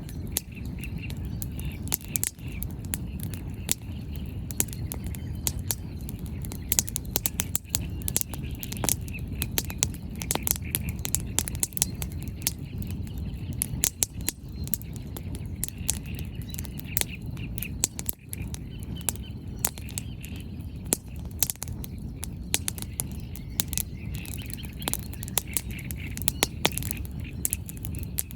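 Wood campfire crackling and popping, with many sharp irregular snaps over a low steady rumble. Birds chirp now and then in the background.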